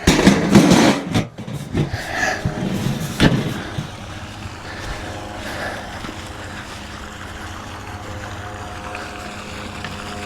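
Poultry feed poured and knocked into feed bowls, a run of rattles and clatters over the first three seconds or so. After that, a steady low hum with a few held tones.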